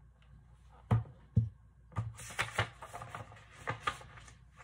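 Two soft knocks, then a quick run of paper rustling and light tapping as a large hardcover picture book is handled and its page turned.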